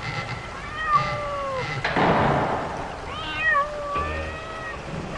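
A cat meowing: two drawn-out, wavering meows about two seconds apart. Between them comes a short, loud rushing noise.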